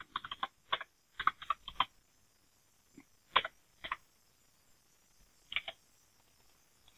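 Computer keyboard keys being typed: a quick run of keystrokes over the first two seconds, then a few single key presses spaced a second or two apart.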